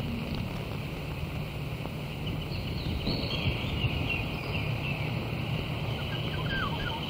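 Outdoor ambience: birds calling over a steady low rumble, with a continuous high chirring band and a few short rising chirps about six seconds in.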